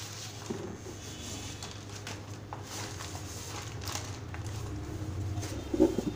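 Faint steady low hum with scattered light clicks, and a short knock near the end as the handheld recording device is moved.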